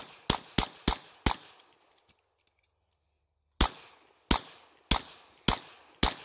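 Pistol shots from a 9mm CZ Shadow 2 fired in a competition string: four quick shots in the first second or so, a pause of about two seconds, then five more evenly spaced about half a second apart, each with a brief echoing tail.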